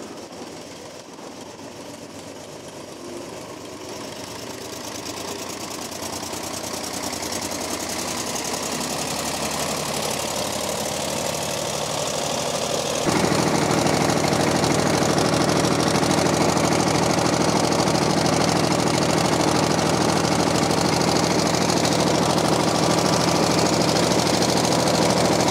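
A vintage tractor engine running, growing gradually louder over the first dozen seconds, then a sudden step up in loudness about halfway through, after which it runs steadily.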